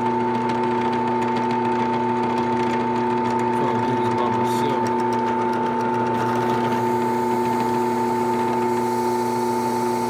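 Drill press motor running at a steady speed, spinning a brass roll crimper for crimping 12-gauge shotgun shells: an even hum with several steady pitches.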